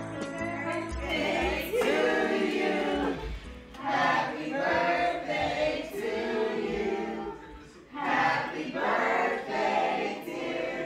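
A group of people singing together in three sung lines, with a short break between each.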